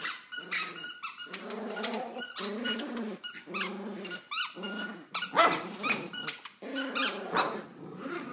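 Two puppies, a Yorkshire terrier and a black-and-tan pup, growling in short repeated bouts as they tug on a plush toy, with high squeaky yips in between.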